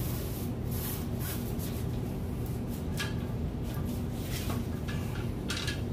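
Fabric of a sail-line sail rustling and scraping in short, irregular bursts as it is pulled tight onto a PVC pipe, over a steady low hum.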